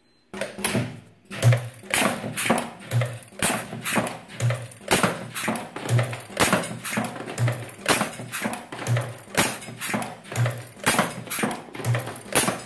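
Automated rotary .22LR rimfire cartridge-loading machine cycling: a steady rhythm of sharp metallic clacks, with a deep thump about every one and a half seconds as the dial indexes.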